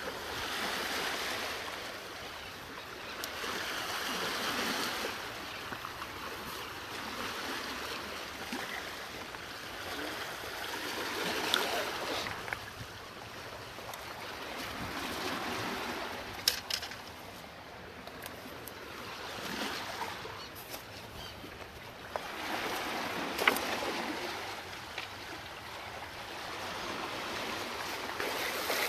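Small waves washing against shore rocks, swelling and fading every few seconds, with a few sharp clicks among them.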